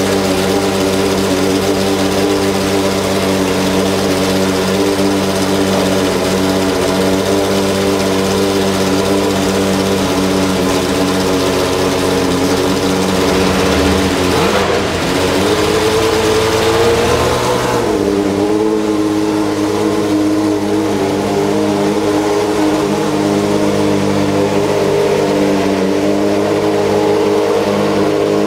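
1995 Ferrari 412 T2 Formula 1 car's 3.0-litre V12 idling steadily. About halfway through the revs dip, climb briefly, then settle at a slightly higher idle.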